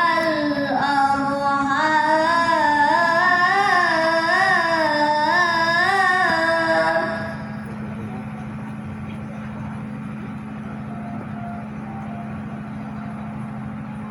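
A woman chanting Quran recitation in a long, ornamented melodic phrase, the voice wavering up and down on held notes and stopping about seven seconds in. A steady low hum remains afterwards.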